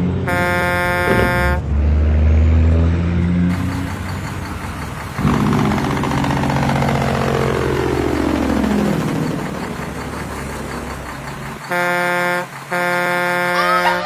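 Truck air horn blasting at the start, then a truck engine passing by with its pitch falling, then two more horn blasts near the end.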